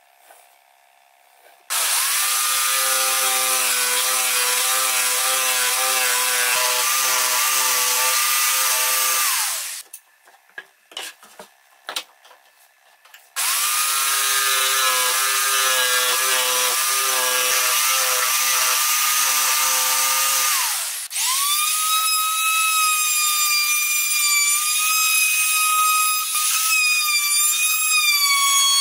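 Electric jigsaw cutting a curve in a pine board in two runs of about eight seconds each, with a pause of small knocks between them. About 21 seconds in a handheld trim router starts and keeps running at a high steady whine as it routes the board's edge.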